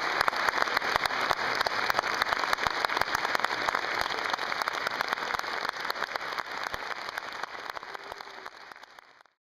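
Audience applauding: dense, steady clapping that fades out over the last few seconds and cuts off shortly before the end.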